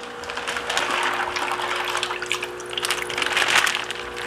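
Water pouring and splashing out of a plastic fish shipping bag as it is opened and emptied.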